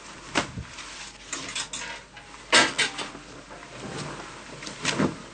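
Quick swishes and rustles of clothing being handled, a string of short sharp noises with the loudest about two and a half seconds in.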